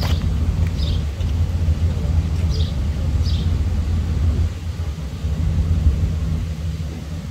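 Steady low outdoor rumble, with a few short, high, falling chirps over it.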